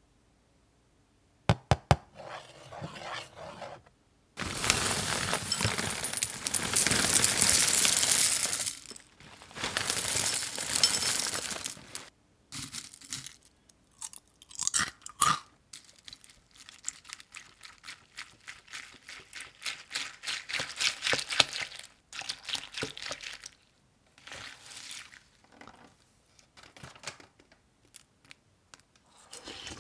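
A box of Post Corn Flakes being opened by hand: a few sharp clicks, then two long stretches of loud crinkling and tearing of the packaging, followed by many small irregular crunches and rustles of the dry flakes.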